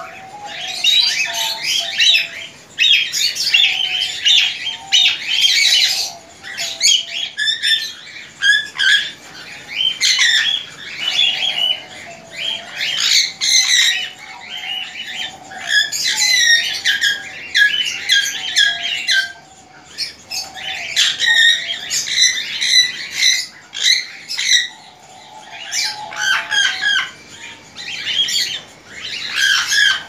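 A flock of caged budgerigars chattering, with many overlapping chirps and squawks that ebb and swell, and a lower warbling call underneath at times.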